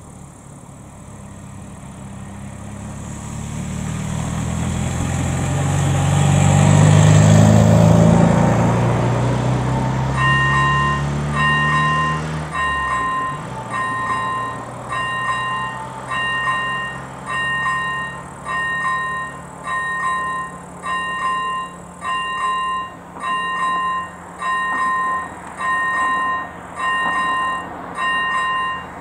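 A vehicle passes close by, its engine noise swelling to a peak and falling away in pitch. Then the level crossing's electric ZV-01 warning bell starts, ringing a steady ding about once a second: the crossing has been activated for an approaching train.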